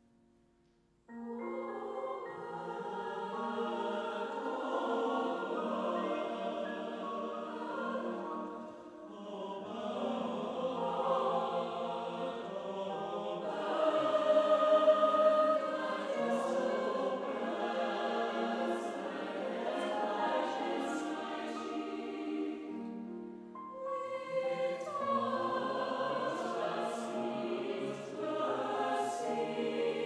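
A large mixed choir of men's and women's voices singing, coming in about a second in after a brief near-silence. The singing moves in long phrases with two short breaks between them, and swells to its loudest about halfway through.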